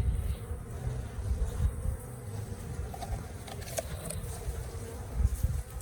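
Honey bee swarm buzzing steadily close by as the bees are scooped by hand, over uneven low rumbling and a brief click or two.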